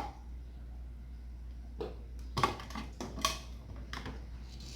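A few light, irregularly spaced clicks and knocks over a steady low hum.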